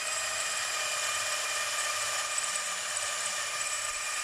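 Budget 12 V cordless drill running continuously with a steady high-pitched motor whine while drilling into a brick.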